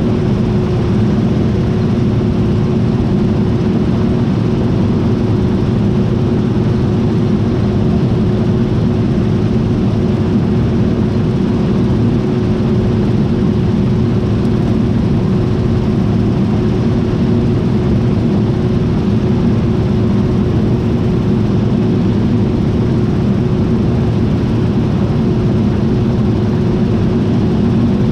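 John Deere T660i combine harvester running steadily: a constant low machine rumble with a steady hum tone on top, unchanging throughout.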